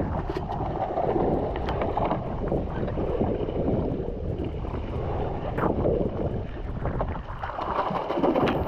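Wind buffeting the microphone over choppy sea water sloshing against a jetski's hull, with a few brief knocks.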